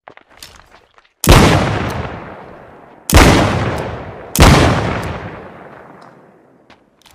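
Smith & Wesson Model 13 revolver fired three times, the shots a second or two apart, each a sharp crack with a long echoing decay. Faint clicks come before the first shot.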